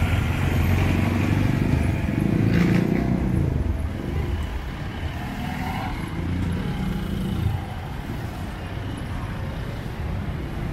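Street traffic: engines of passing jeepneys, motorcycles and cars running. It is loudest in the first few seconds and eases after that.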